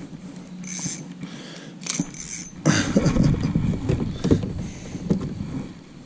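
Splashing and knocking as a small largemouth bass is reeled in and landed in a kayak: irregular bursts of water and handling noise, busiest in the second half.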